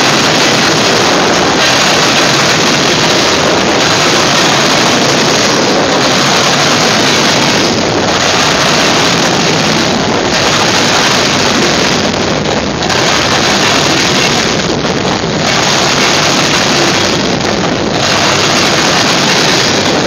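Freight cars rolling past close by: a loud, steady rush of steel wheels on rail that dips slightly about every two seconds.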